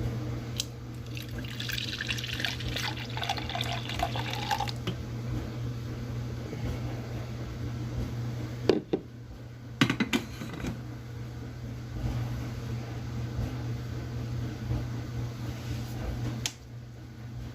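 Liquid poured into a Magic Bullet blender cup for about four seconds, then a few sharp knocks a little past the middle, as things are set down on the counter. A steady low hum runs underneath.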